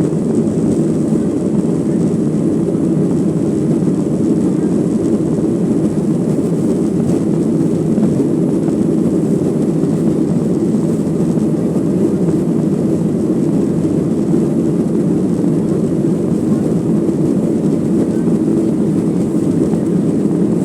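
Steady low roar inside the cabin of a Boeing 737-900ER from a rear seat: its two CFM56-7BE turbofan engines and the airflow past the fuselage, running at an even level with no change.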